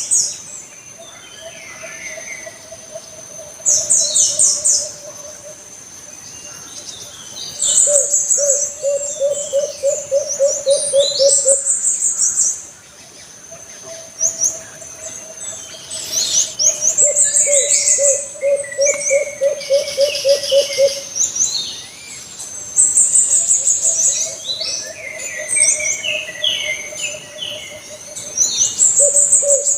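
An alimukon dove cooing in repeated rapid runs of low, even pulses, each run lasting one to two seconds, with a pause of several seconds between runs. Over it, other small birds chirp and trill at a high pitch, louder than the coos, in bursts about every four to six seconds, and a steady high whine runs underneath.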